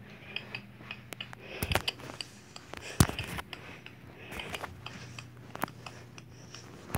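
Handling noise from a phone being moved and shaken in the hand: scattered clicks, knocks and rubbing, with one sharp click about three seconds in, over a faint low hum.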